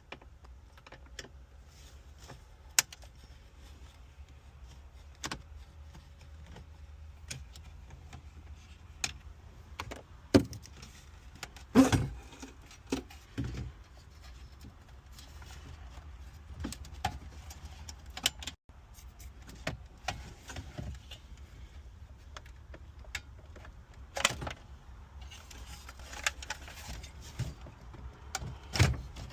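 Scattered clicks, clunks and rattles of hand work inside a car dashboard, a salvaged factory radio being pulled from its dash opening and its plugs worked loose, with a few louder knocks, over a steady low rumble.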